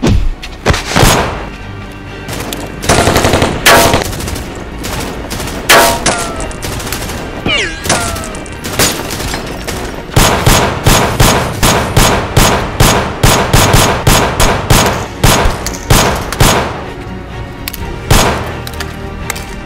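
Gunfire in a staged film shootout: scattered single shots and pairs at first, then a fast run of shots at about three or four a second for some six seconds, and one more shot near the end.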